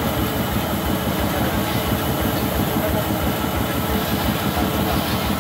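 Large sawmill band saw running steadily, its motor, belt drive and blade making a loud, fast rattling rhythm while a log is pushed into the blade.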